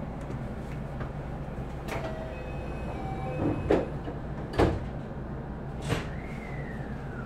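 Four sharp clunks over the steady hum of a commuter train standing at the platform, typical of the doors closing for departure. A few faint short tones sound partway through, and a falling tone starts near the end.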